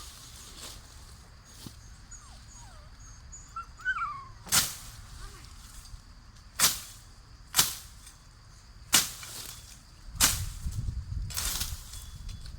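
A series of sharp knocks or strikes, one every one to two seconds.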